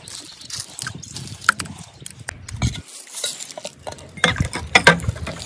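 Steel spoon scraping and clinking against a steel bowl as green herb paste is knocked off into a tank of water, with a few soft splashes. The clinks are sharpest and most frequent about four to five seconds in.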